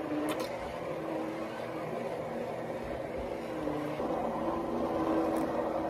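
Handheld immersion blender running steadily in a stainless pot, pureeing thick cooked pinto beans into refried beans. Its motor pitch shifts slightly as it works through the mix.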